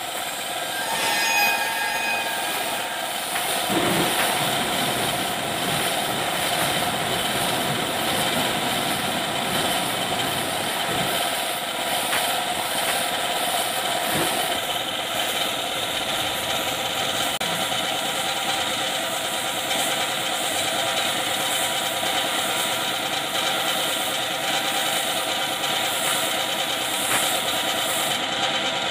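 Steady hiss of a paint spray gun laying primer onto a steel dump-truck body, over the even running of a machine.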